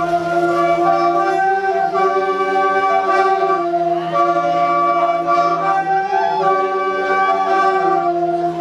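Music played on wind instruments: held chords over a steady low drone, the notes shifting every second or so.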